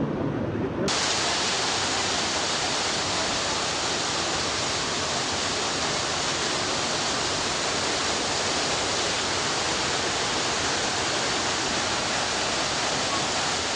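Waterfall rushing: a steady, dense roar of falling water. It cuts in abruptly about a second in, replacing a lower rumble.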